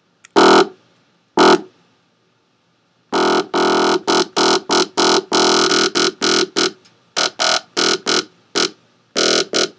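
Synthesized bass notes played through an EQ with vowel-like peaks set to shape an 'E' sound: two short notes, then from about three seconds in a fast run of short repeated notes.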